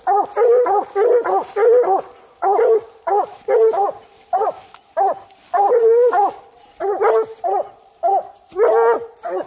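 Coonhounds barking at the base of a tree: a steady run of short, loud barks, about two to three a second, the sound of hounds that have treed their quarry.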